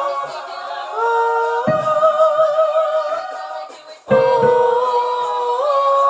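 A singer singing an alto choir part unaccompanied, holding long notes that step upward in pitch, with a brief break about four seconds in before the next phrase begins.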